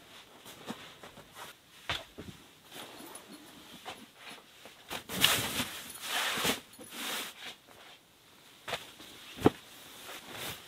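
Bedding handled on a folding camp cot: scattered light taps and knocks, then a rustling swish about five to seven seconds in as a folding mattress pad is unfolded and laid on the cot, and one sharp knock near the end.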